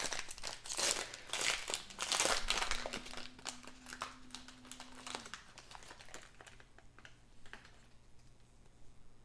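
Foil wrapper of a hobby pack of basketball trading cards crinkling as it is pulled open by hand. The crinkling is densest for the first two seconds or so, then dies down to fainter handling.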